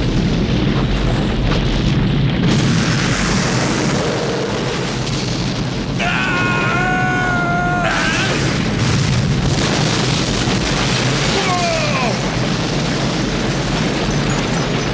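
Film sound effects of a jet airliner burning and blowing up: a dense, continuous rumble of fire and explosions, with orchestral score mixed in.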